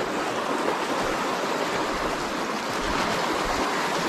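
Fast river water rushing over a shallow riffle, a steady, even rush.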